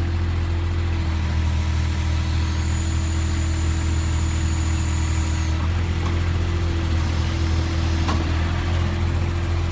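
Avant 420 compact loader's engine running steadily at idle while its hydraulics work the mini digger backhoe attachment. A faint high hydraulic whine sounds from about a second in to the middle, and there is a brief click near the end.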